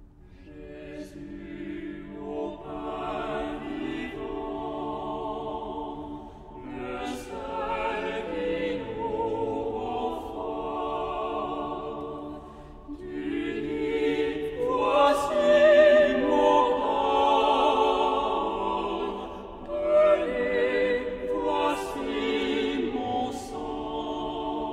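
A choir singing slowly, in long phrases of about six seconds with short breaks between them.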